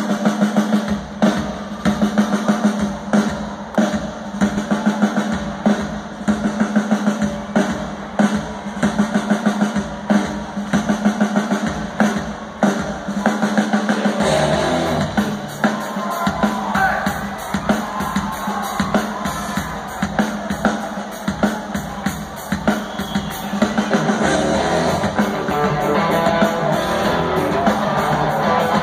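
Live rock band playing through an arena PA, heard from the audience: a steady drum kit groove leads, and bass and other instruments fill in from about halfway through.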